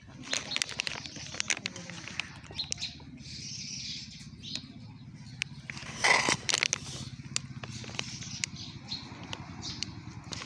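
Outdoor ambience with birds chirping, scattered sharp clicks and taps throughout, and a louder burst about six seconds in.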